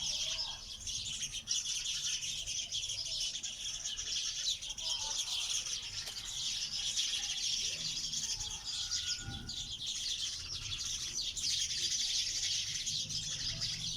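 Many small birds chirping at once: a dense, continuous, high twittering chorus with no single call standing out.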